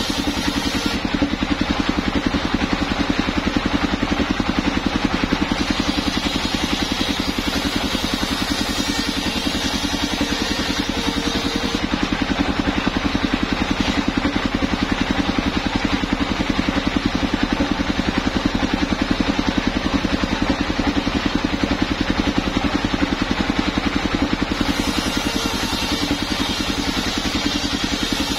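Engine powering a homemade circular sawmill mounted on a small motor cart, running steadily at a constant speed.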